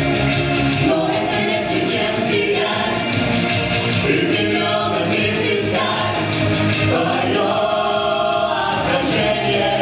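A vocal ensemble singing together over music, several voices blending like a choir.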